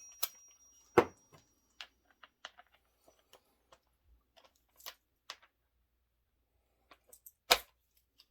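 Scattered sharp metal clicks and knocks of tools and bolts being handled, with two louder knocks, one about a second in and one near the end. The impact wrench is not running.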